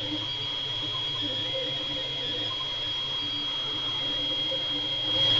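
FDM 3D printer running mid-print: a steady high-pitched whine over a low hum, with small irregular changes from the moving head's motors.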